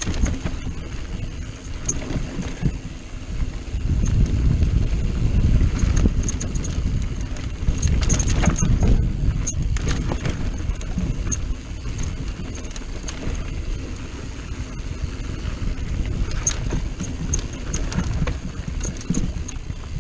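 Mountain bike riding downhill on rocky dirt singletrack: tyres running over the rough ground with a steady low rumble, and many quick knocks and rattles from the bike and chain. The rumble is heaviest from about four to ten seconds in.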